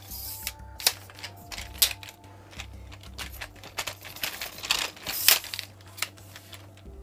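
Telescoping ring-light tripod stand being handled and adjusted: irregular clicks and clacks of its leg sections and locks being worked.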